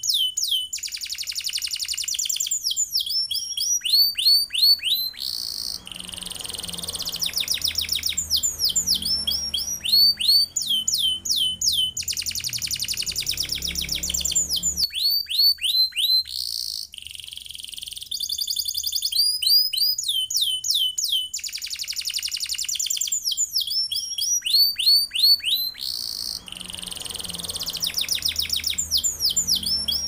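Domestic canary singing without pause: long, very fast rolling trills alternating with runs of high, falling whistled notes, the phrases following each other in repeated cycles.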